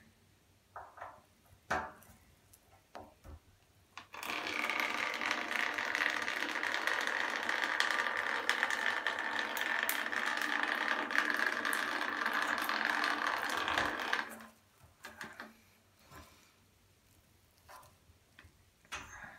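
Bleed key clicking into a central-heating radiator's bleed valve, then about four seconds in a loud, steady hiss of trapped air escaping from the opened valve that stops suddenly some ten seconds later, followed by a few more clicks of the key. Air trapped in the radiator is what makes it sound like running water and stay cold.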